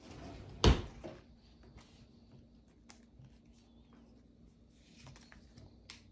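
A single sharp thump just under a second in, then faint clicks and rustles of Pokémon trading cards being flipped through by hand.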